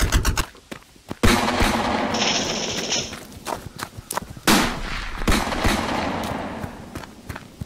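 Battle sound effects: a burst of rapid machine-gun fire cuts off about half a second in. About a second later comes a loud bang with a long noisy tail, then more scattered shots that fade away.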